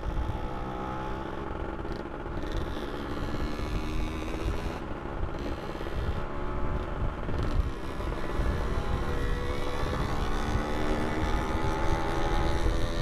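Two-stroke motorcycle engine running under way, its pitch wavering and climbing slowly in the second half as the bike speeds up, with wind rumble on the microphone.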